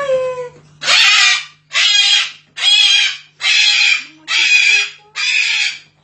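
White cockatoo screeching: a short falling squawk, then six loud, harsh screams about one a second.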